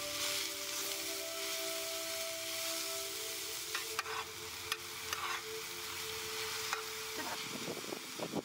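Diced mushrooms and zucchini sizzling as they sauté in a pan, with a metal spoon stirring and scraping the pan a few times around the middle.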